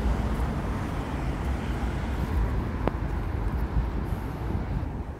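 Steady low rumble of outdoor urban background noise, with a single sharp click about three seconds in.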